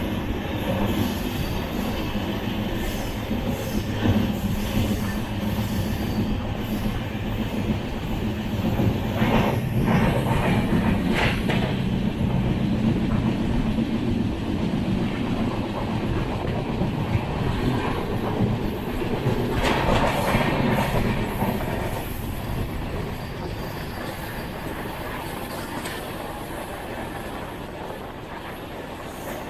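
Passenger train running along the track, heard from on board: a steady rumble with wheel clatter over the rails. There are brief louder clatters about ten seconds in and again about twenty seconds in, and the sound grows quieter over the last several seconds.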